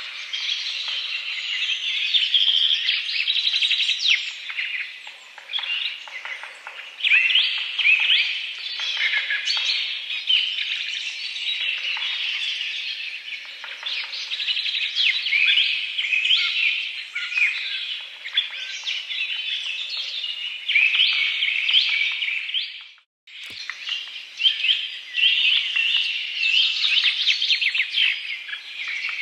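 A dense chorus of many birds chirping and calling together, with rapid overlapping high chirps. About 23 seconds in there is a brief sudden gap with a click, like a splice, before the chorus resumes.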